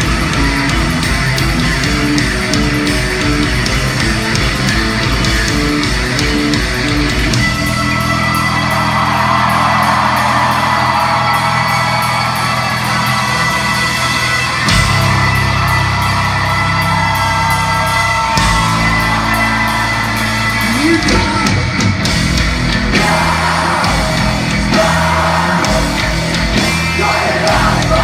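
Live rock band playing loud in a large hall: distorted electric guitars, bass and drums, with a singer alternately singing and yelling. A pulsing, beat-driven passage gives way to the full band with vocals about eight seconds in.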